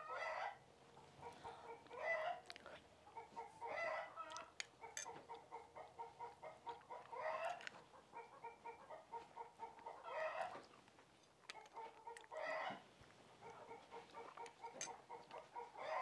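Chickens clucking faintly in a steady run of short clucks, with a louder call every two or three seconds.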